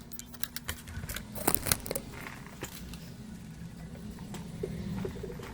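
Scattered small clicks and knocks of handling as an HDMI cable is plugged into a PS5's HDMI port, the loudest pair about a second and a half in, over a steady low hum.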